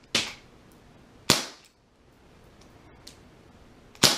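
Ruger Super Hawk CO2 BB revolver firing three shots, each a sharp pop. The first two come about a second apart and the third nearly three seconds later.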